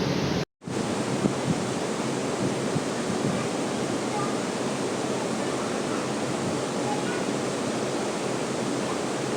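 Steady rush of falling water from a waterfall, with a split-second gap in the sound about half a second in.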